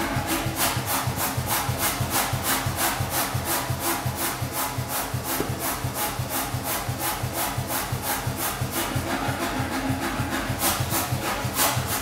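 Beche self-contained pneumatic power hammer running, with a fast, even beat of about four to five strokes a second from its air compressor and ram.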